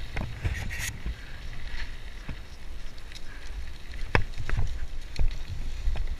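Mountain bike rolling down a rough dirt trail: a steady low rumble with scattered knocks and rattles as the bike goes over rocks and bumps.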